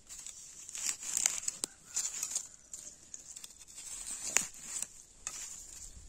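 A knife cutting wild greens at ground level among dry grass and fallen leaves: irregular rustling and crackling, with a few sharp snaps, the loudest about four and a half seconds in.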